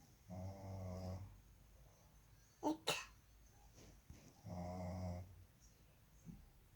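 A man snoring, two long snores about four seconds apart. Between them come two brief, sharp sounds.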